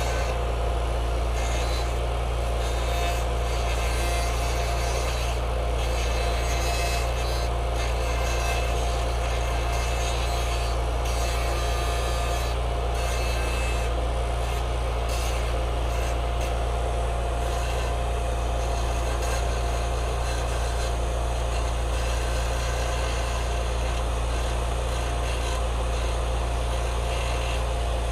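Arc welding on a metal farm gate: a steady crackling hiss over the constant hum of a mobile, engine-driven welding unit.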